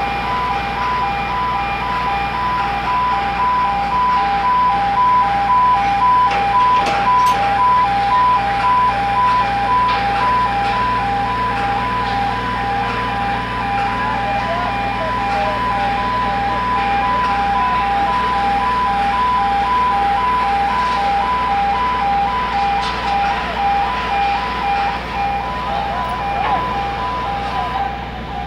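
Heavy-lift crane site with an electronic warning alarm beeping in a rapid, even pulse on two high pitches, over the steady low hum of running heavy machinery. The beeping stops near the end.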